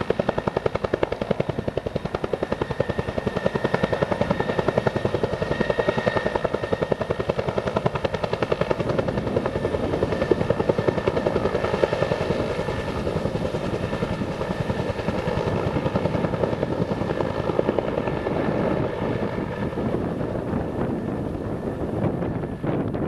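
Bell medium helicopter waterbomber with a two-bladed main rotor hovering close by while it refills, the rotor beating rapidly and evenly under a steady turbine whine. The sound falls off just before the end.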